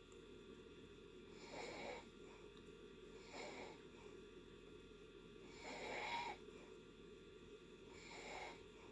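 A person snoring softly in deep sleep: four breaths roughly two seconds apart, the one about six seconds in the loudest, over a steady low background hiss.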